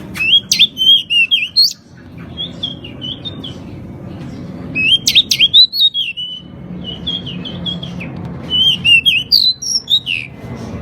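Pied bushchat singing: five short bursts of quick, high, chirping whistles with brief pauses between them, over a steady low background hum.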